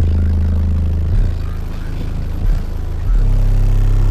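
Deep bass notes played loud through a single Skar ZVX 18-inch subwoofer in a ported box tuned to 35 Hz, driven by an Audiopipe 1800 amplifier. The notes are held steady and change pitch about a second in, then drop to a lower note about three seconds in.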